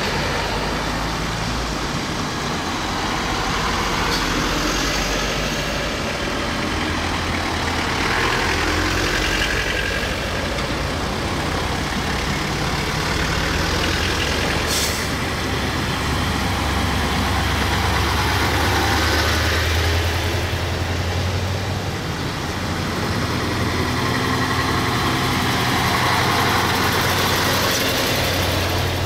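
A column of military trucks and light utility vehicles driving past one after another on wet pavement. Engines run low and steady, and tyre noise swells as each vehicle goes by, with a brief sharp hiss about halfway through.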